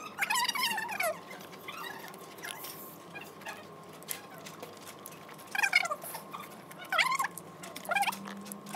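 People's voices at a dinner table, short high exclamations and snatches of talk with pauses between them, over a faint steady tone in the hall.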